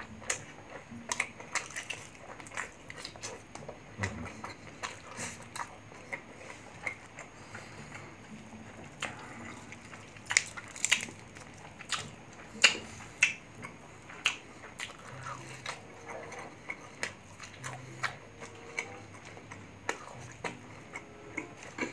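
Close-miked wet chewing and smacking of grilled chicken and rice eaten by hand, with many short sharp crackles. The loudest crackles come about halfway through, while the grilled chicken is torn apart by hand.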